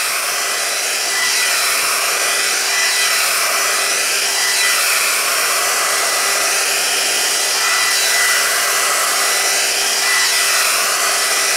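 GHD Duet Style hot-air straightener running, its fan blowing a steady rush of air over a steady hum and a thin high whine. The tone of the airflow swells and dips every second or two as the tool is drawn down through the hair.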